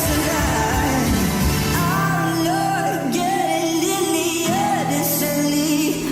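Pop song with a singer's voice over a full backing track.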